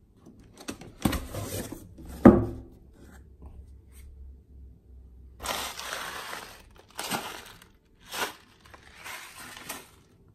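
A cardboard rifle box being opened and unpacked: two knocks about one and two seconds in, the second the loudest, then several short crinkling bursts as a plastic bag of airsoft BBs is picked up and handled.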